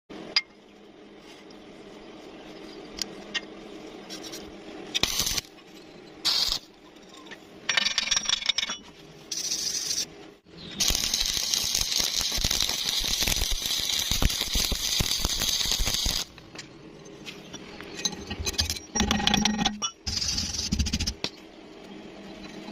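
Electric arc welding on steel: several short crackling bursts of arc, then one longer, steady crackling run of about five seconds, with a few more short bursts near the end.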